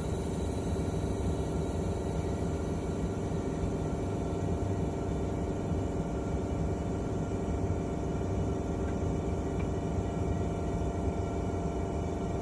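Locomotive diesel engine idling steadily, heard from inside the cab as an even hum.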